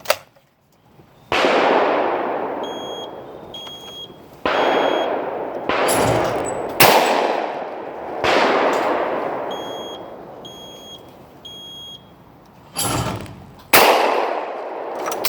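About seven 12-gauge over/under shotgun shots, each a sharp crack with a long decaying tail, some coming in pairs about a second apart. Short electronic beeps sound between them from the trap release's delay timer.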